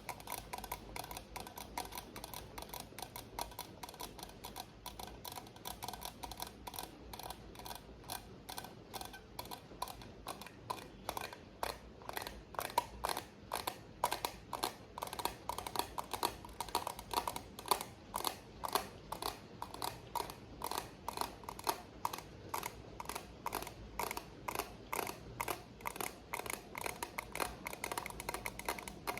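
ASMR tapping: quick, even taps, several a second, with a steady rain hiss underneath.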